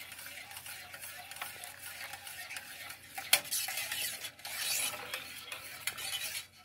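Wire whisk stirring hot milk custard in a stainless steel saucepan, scraping and clinking against the pot's sides and bottom, with a sharper clink about three and a half seconds in.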